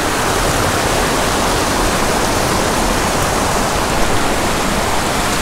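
Small mountain creek rushing over rocks and little cascades right at the microphone: a steady, loud rush of water.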